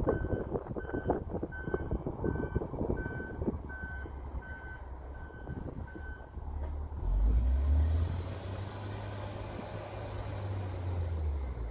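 Vehicle reversing alarm beeping steadily, about twice a second, then stopping about six seconds in, heard over wind buffeting the microphone. After that a louder low rumble takes over.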